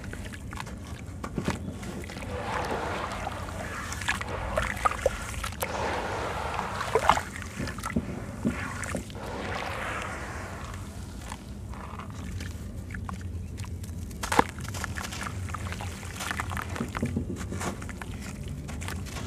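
Hands crumbling and squeezing soft, grainy sand-cement chunks in a tub of water: gritty crunching mixed with wet squelching and sloshing, with a couple of sharp cracks, one about seven seconds in and one about fourteen seconds in.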